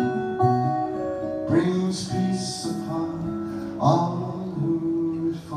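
Acoustic guitar music in a song's instrumental outro: strummed chords about a second and a half and four seconds in, with notes ringing on between them.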